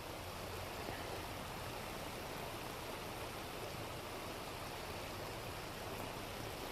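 River water running over a shallow gravel riffle: a steady rushing noise with no breaks.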